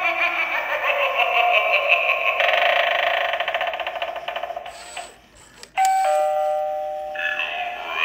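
Halloween eyeball doorbell prop playing its electronic spooky sound effects through its small speaker: a rapidly pulsing, fluttering sound for about five seconds, then after a short break a bell-like chime of several held notes that fade away, before the effects start up again.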